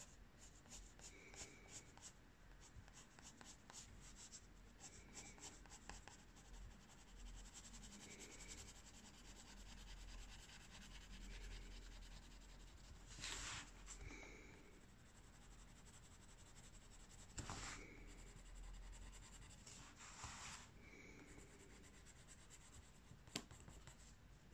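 Faint scratching of a black coloured pencil on paper, in many quick short strokes. About thirteen, seventeen and twenty seconds in come three louder, longer scrapes, and there is a single sharp click near the end.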